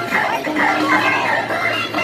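Music playing, carried by a high, wavering melody line.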